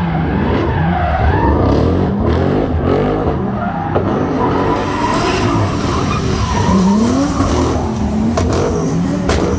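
Car engine revving up and down repeatedly, with tyres squealing.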